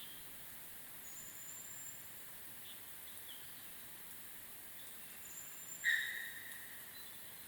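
Quiet early-morning forest ambience with faint, thin, high bird calls, and one sudden louder note about six seconds in that fades within a second.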